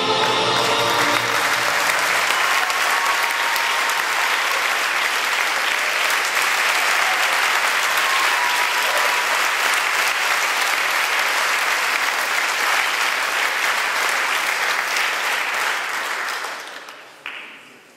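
Audience applauding steadily after the end of a stage act, the applause dying away near the end.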